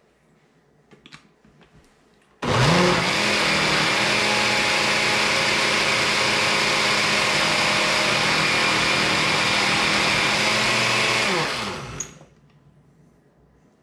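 Countertop blender with a glass jar starts about two seconds in, spins up quickly and runs steadily for about nine seconds, blending a thick, milkshake-like onion and oil dressing, then winds down with falling pitch. A couple of faint clicks come before it starts.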